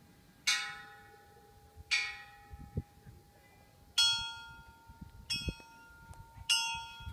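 Hanging metal temple bells struck five times in a row, each strike ringing on and fading slowly into the next. The first two strikes and the last three come from bells of slightly different pitch.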